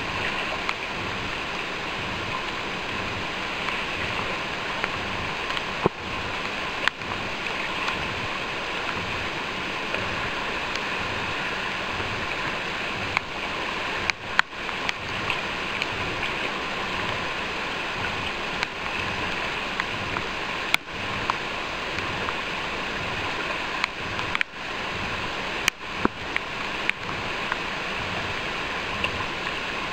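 Steady rush of fast-flowing river water, with a few short, sharp clicks scattered through it.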